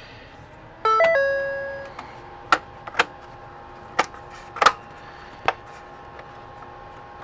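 A two-note electronic chime sounds once about a second in and fades away, followed by several sharp plastic clicks and knocks as the instrument cluster's circuit board is pressed into its plastic housing, over a faint steady hum.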